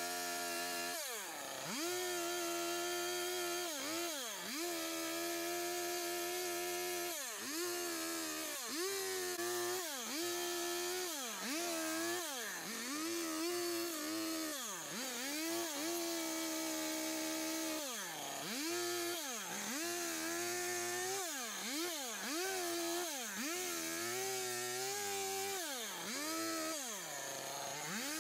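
Stihl two-stroke chainsaw cutting into a log, the throttle let off and squeezed again every second or two so the engine pitch dips and climbs back up over and over.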